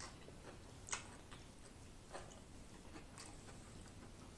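Faint chewing of a mouthful of noodles, with a few soft wet mouth clicks scattered through it, the clearest about a second in.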